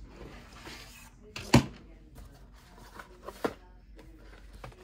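Handling noises of objects being picked up and set down on a table, with one sharp knock about a second and a half in and a few lighter taps and clicks around three to three and a half seconds.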